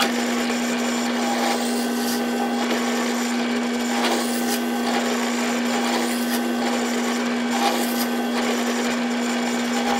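Drill press running with a steady hum while its bit bores holes through layered plywood.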